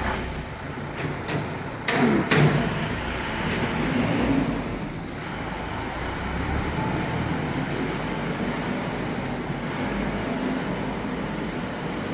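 Steady machinery noise on a factory floor around a panel edge-banding line, with a few sharp knocks and clanks in the first three seconds.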